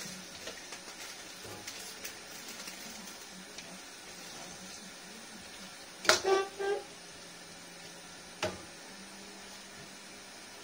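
A metal spatula clinking and scraping against a steel wok: a short clatter of ringing clinks about six seconds in and a single click a little over eight seconds in, over a faint steady hiss.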